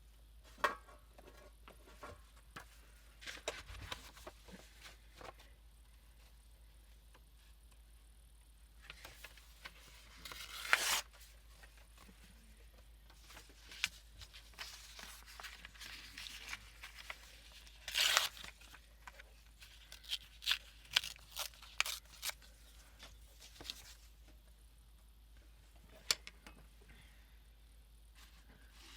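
Hands working with paper and packing materials on a tabletop: scattered taps, clicks and rustles, with a few short, louder tearing bursts about a third of the way in and again past the middle.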